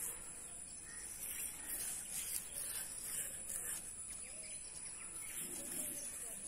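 Outdoor ambience: a steady high-pitched insect drone with faint bird chirps, over the soft repeated rasp of steel wool scrubbing a brass gas-stove burner.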